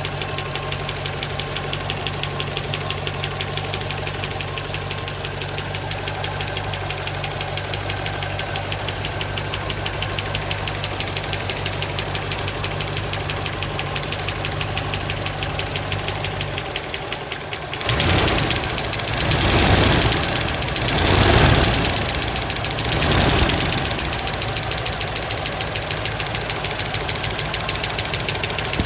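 1963 Impala's 327 small-block Chevy V8 idling with a fast, even ticking that the owner puts down to the right-side valves. About 18 s in, the engine is revved four times in quick succession, then it drops back to idle with the ticking still there.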